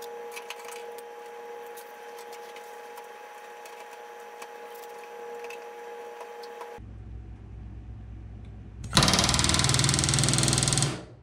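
Pneumatic rivet gun driving a solid rivet through the aluminium skin of an RV-10 horizontal stabilizer into a stringer, against a bucking bar held behind it: one loud burst of rapid hammering about two seconds long, starting about nine seconds in. Before it, a steady hum with small clicks and taps, which cuts off to a low rumble a couple of seconds before the gun fires.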